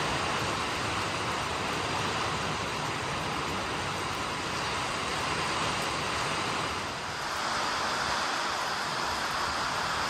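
Heavy rain falling steadily on standing floodwater and banana leaves, a dense even hiss with wind, easing slightly for a moment about seven seconds in.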